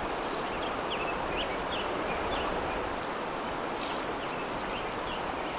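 Steady rush of a fast-flowing river running over rocks, with a few short, high bird chirps and one brief click about four seconds in.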